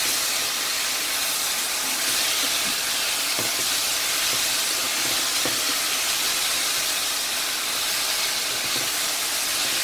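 Sliced mushrooms and onions sizzling steadily in a sauce in a nonstick frying pan, stirred with a nylon spatula that gives a few faint scrapes against the pan.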